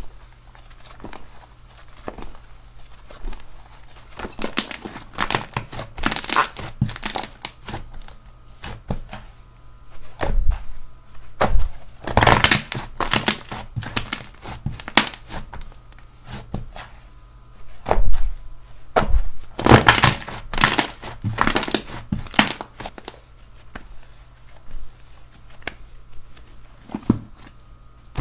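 Slime being squeezed and pressed by hand, giving irregular bursts of crackling, popping and crinkling that come in clusters, loudest in the middle of the stretch.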